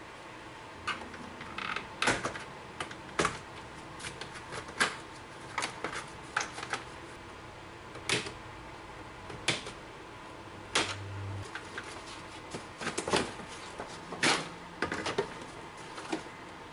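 Hand tools and metal parts clicking and knocking in irregular, uneven strokes during repair work, with a brief low hum a little past ten seconds in.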